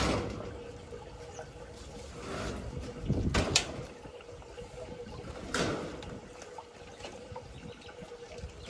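Corrugated metal roofing sheets scraping and rattling as they are slid over a concrete tank and weighted down with bricks: a few noisy scrapes and clunks, the loudest about three and a half seconds in, over a faint steady hum.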